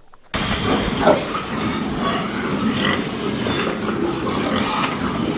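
A group of pigs, many short overlapping calls forming a dense, steady din that cuts in abruptly about a third of a second in.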